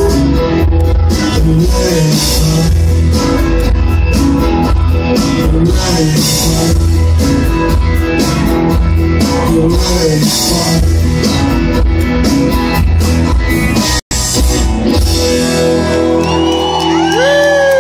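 Live country-rock band playing loud: electric guitars, bass and drum kit with a lead vocal. The sound cuts out for an instant about 14 seconds in; after it the band rings out a held chord and the audience whoops near the end.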